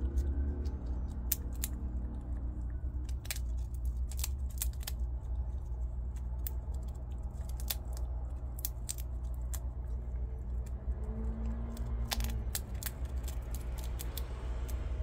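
Prairie dogs gnawing and crunching nuts, with irregular sharp crunches and cracks of shell, over a steady low hum.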